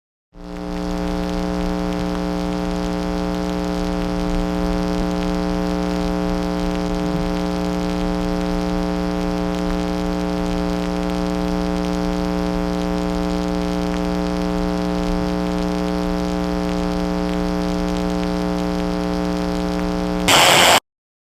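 A steady electronic drone of several held tones over a layer of hiss, ending near the end in a brief, louder burst of static that cuts off suddenly.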